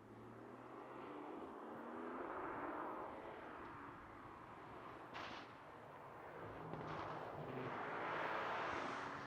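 Competition car's engine heard at a distance, its note swelling and fading twice as it runs through the course, with a sharp bang about five seconds in and a smaller crack near seven seconds.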